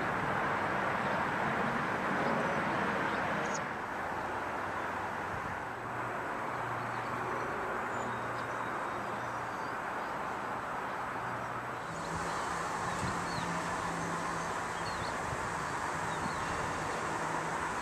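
Steady outdoor background rush picked up by a handheld camera's microphone, with a faint low hum and a few faint high chirps; the rush shifts in level and tone about four and about twelve seconds in.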